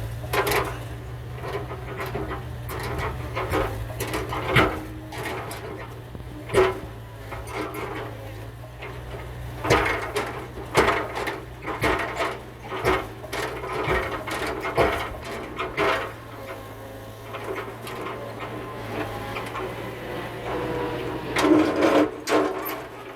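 Mini excavator working on demolition, its engine a steady low hum under irregular sharp cracks and knocks of wood and debris being broken and shifted. A cluster of loud cracks comes near the end.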